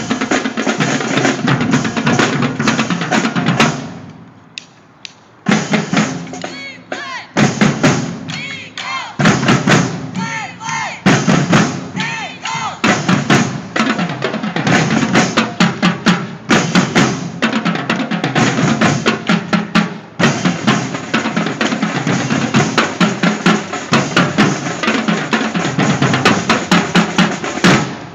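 High school drumline playing its show on snare drums, tenor drums and bass drums, with fast, dense strokes; the playing breaks off briefly about four seconds in and then comes back in.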